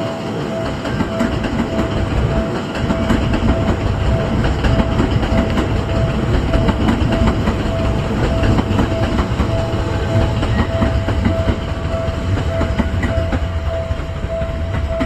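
Seibu Railway level-crossing alarm ringing, a single-pitch electronic ding repeating at an even pace. Under it a Seibu train rumbles past, its wheels clattering over the rail joints.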